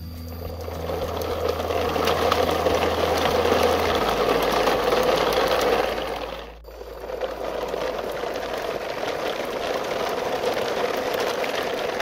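Plastic toy trucks towed in a line, their hard plastic wheels rolling over a rough dirt road with a steady gritty rattle that dips briefly about six and a half seconds in.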